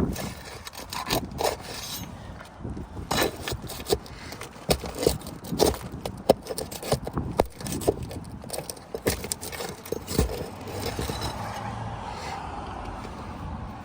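A metal tool scraping and knocking on asphalt roof shingles as the tabs are worked loose and the nails located, in a run of short, irregular scrapes and clicks. A steadier hum comes up near the end.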